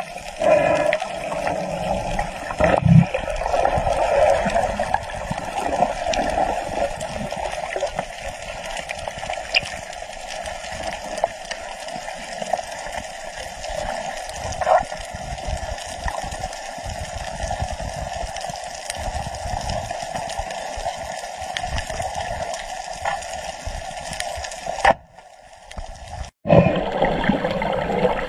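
Muffled underwater water noise picked up by a camera below the surface, a steady rushing with gurgling and bubbling. It cuts out briefly near the end.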